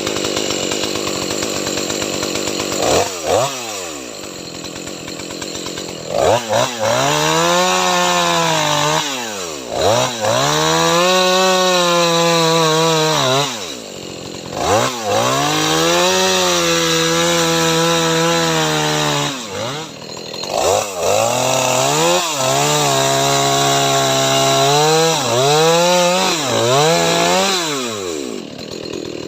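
EFCO MT6500 two-stroke chainsaw run in repeated bursts of full throttle, each held for one to four seconds before dropping back toward idle, as it cuts into wood.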